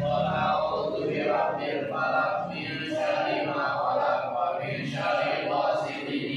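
A group of men chanting Islamic prayers together in unison, in short repeated phrases.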